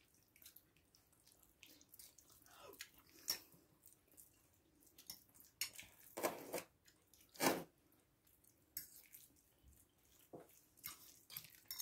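Quiet room with scattered soft clicks and taps of eating, such as chewing and a spoon against a bowl. The louder ones come about three, six and seven and a half seconds in.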